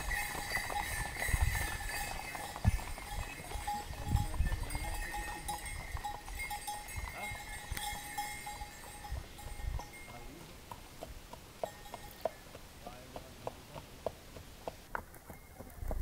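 Mule walking on a dirt road toward the microphone. In the second half its hooves give short regular clops, about two a second, over a steady high hum, with some low rumbles early on.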